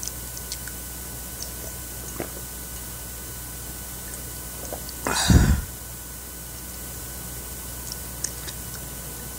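A person drinking water from a glass jar: a few faint small clicks of lips and glass, and one loud swallowing gulp about five seconds in.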